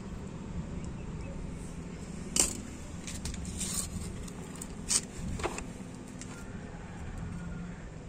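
Sharp metallic clicks and clatter of hand tools being handled: a wire stripper and a ratcheting MC4 crimping tool. The two loudest clicks come about two and a half and five seconds in, with smaller clicks between them. A steady low rumble runs underneath.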